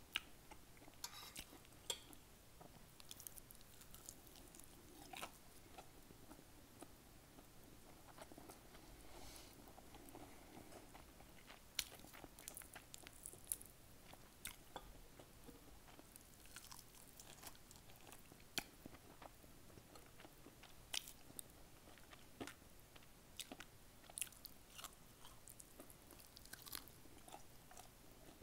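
Faint, close-miked eating sounds: a person chewing fried chicken and sautéed collard greens, with many scattered sharp mouth clicks.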